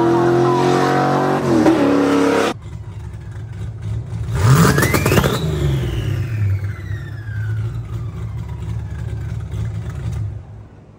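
Fox-body Mustang engine accelerating hard down a drag strip, its pitch climbing with a gear change partway. After a sudden cut, a car engine idles and is revved once, its pitch shooting up sharply and then falling slowly back to idle.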